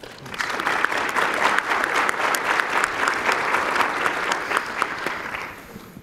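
Audience applauding: dense clapping that starts right away, holds steady, and dies away over the last second or so.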